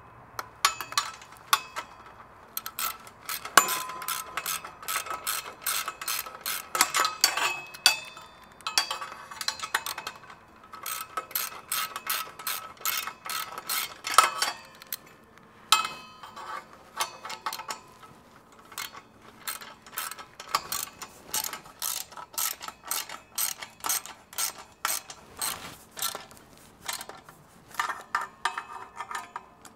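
Hand ratchet wrench working bolts, clicking in runs of rapid clicks broken by short pauses, with a few louder metal clinks.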